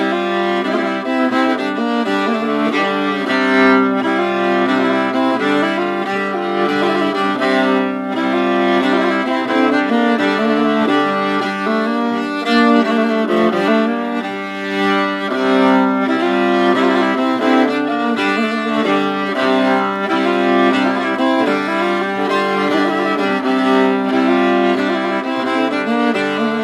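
Background music of bowed strings led by a violin, playing a classical-style piece in held notes.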